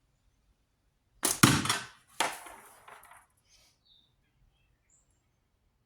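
Slingshot shot with heavy latex bands and 11 mm steel ammo: a sharp snap and smack about a second in, then a second loud clatter about a second later that trails off.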